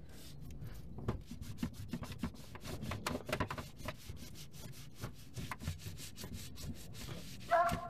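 Cloth rag rubbing over a plastic underbody panel in quick, repeated wiping strokes as dirt and residue are cleaned off.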